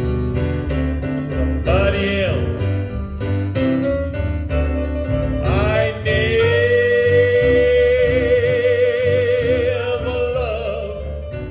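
A blues song played back through a pair of Epicure EPI 500 loudspeakers and heard in the room: a bass line with short notes over it, then from about six seconds in a long held, wavering note that ends near the close while the music grows quieter.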